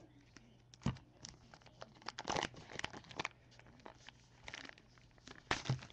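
Shiny plastic trading-card pack wrapper crinkling and crackling as it is handled and crumpled, in irregular crackles with a few sharper ones.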